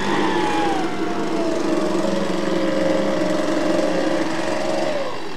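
A gas chainsaw's small two-stroke engine running steadily, its pitch sinking over the first couple of seconds and then falling away near the end as the revs come down.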